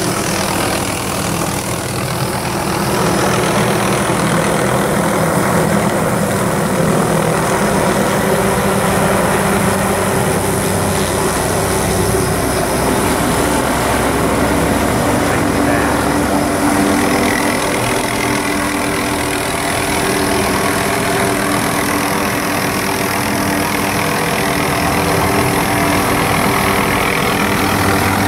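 Helicopter close overhead, its engine and rotor giving a loud, steady drone whose pitch shifts a little past the middle.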